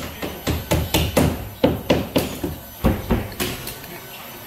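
Hammer driving nails into a drywall ceiling sheet: a quick run of sharp blows, about four a second, that stops near the end.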